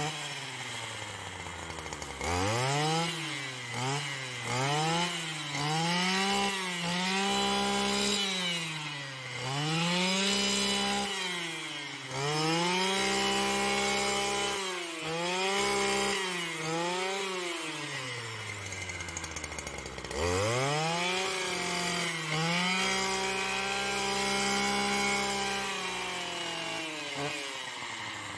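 Stihl petrol brushcutter cutting tall grass. It starts at idle, revs up after about two seconds, then its engine pitch rises and falls about once a second as the throttle is worked. Around two-thirds of the way through it drops back to idle for a couple of seconds before revving again.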